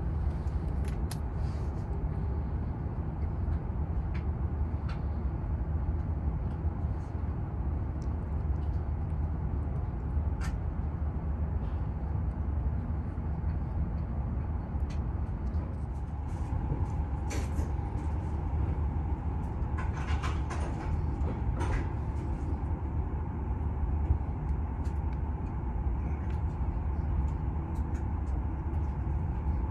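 Steady low rumble of a Hokuriku Shinkansen E7/W7-series train heard from inside the passenger car while it runs along the line. A few faint light clicks come now and then.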